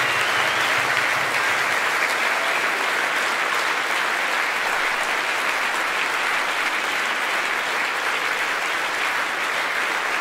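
Large audience applauding steadily: dense, even clapping that holds at one level throughout.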